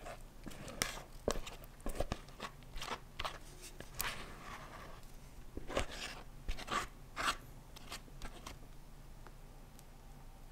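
Silicone spatula scraping thick Oreo cheesecake filling out of a container, with irregular scrapes and taps as the filling slides into the pie dish; the strokes get quieter near the end as it is spread in the dish.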